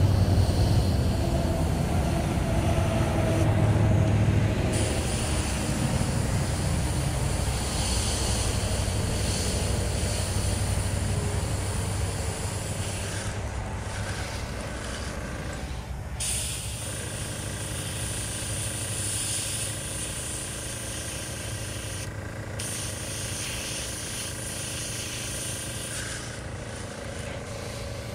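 Airbrush hissing as paint is sprayed, the hiss cutting out briefly a few times as the trigger is let off, over a steady hum. A low rumble, loudest in the first few seconds, slowly fades away.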